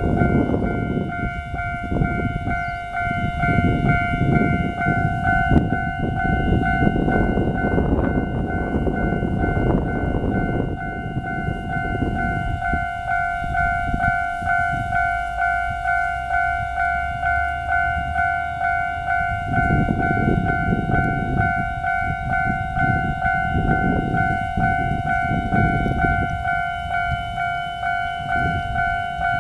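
Railway level-crossing warning bell ringing in a steady, even repeat, over a loud low rumble that is heaviest for about the first twelve seconds, eases off, then comes back in surges later on.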